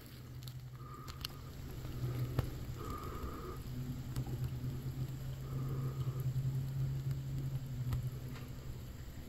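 Low, steady hum of an idling vehicle engine, swelling somewhat in the middle, with a few short, faint higher tones now and then.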